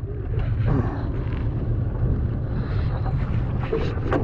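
A boat motor running steadily, with wind buffeting the microphone and a few faint clicks.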